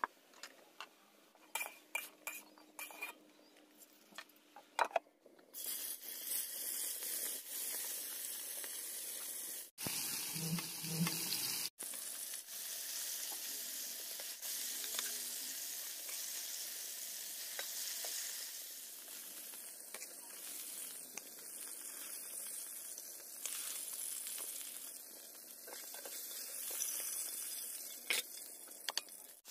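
A metal spatula clicks and scrapes against a pan for the first few seconds. Then fish fry in hot oil with a steady sizzle, stirred and turned with the spatula, with two brief breaks.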